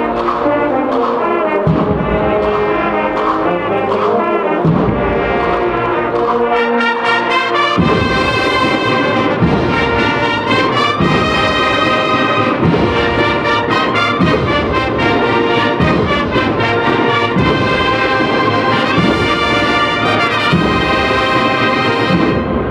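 Agrupación musical, a Spanish Holy Week brass and percussion band, playing a procession march: trumpets and trombones carry the melody over a steady, evenly spaced drum beat.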